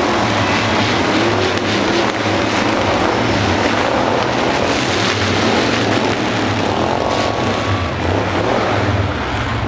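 Many demolition derby cars' engines running and revving all at once, a loud, steady din.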